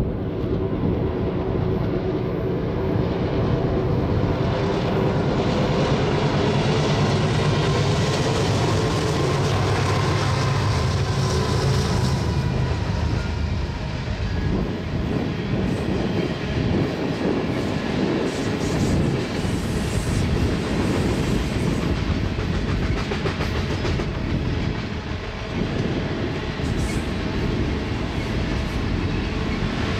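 BNSF freight train passing: the diesel locomotives' engines run with a steady low drone. About halfway through this gives way to the rumble and clickety-clack of refrigerated boxcars and double-stack container cars rolling by on the rails.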